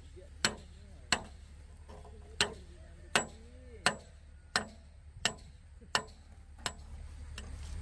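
A hand tool striking something hard again and again, about ten sharp blows at an even pace of roughly one every 0.7 seconds.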